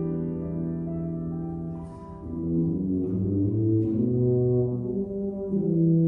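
Tuba and grand piano playing a classical piece together, the tuba sustaining long low notes. The music briefly softens about two seconds in, then picks up again.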